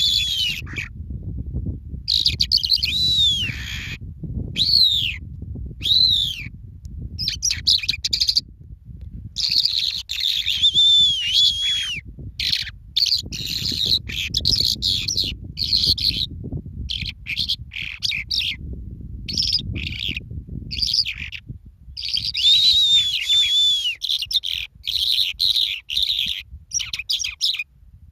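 Birds chirping in repeated bursts of high, arching notes that rise and fall, with short pauses between bursts. A low rumble runs underneath and eases off about three quarters of the way through.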